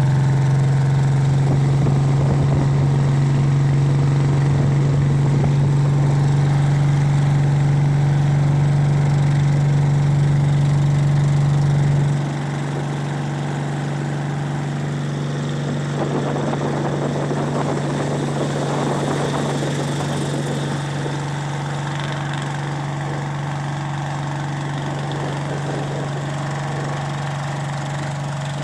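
Outboard or small inboard engine of a fiberglass bangka boat running steadily with a constant low hum. It drops to a quieter level about twelve seconds in and runs on.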